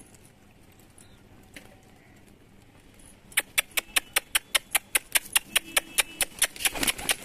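Low background for about three seconds, then a fast, even run of sharp clicks, about eight a second, loud and continuing.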